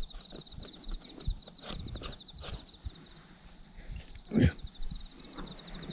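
Insects calling steadily from the surrounding woods: a continuous high tone over a fast pulsing trill. Against it come small clicks and eating sounds as hot soy-milk soup is sipped, with one louder slurp a little over four seconds in.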